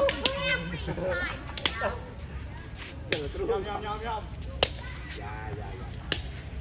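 Sharp smacks of a Khmer shuttlecock being kicked back and forth, five strikes about a second and a half apart, with voices calling in the background.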